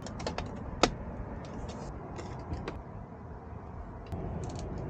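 Light clicks and taps of a trolling motor's plastic head housing and its wiring being handled and fitted together, with one sharper click about a second in, over a low steady rumble.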